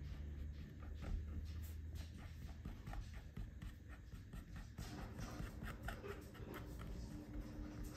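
Tip of a paint marker dabbing and stroking on a painted light switch cover: faint, quick scratchy taps, busier in the second half.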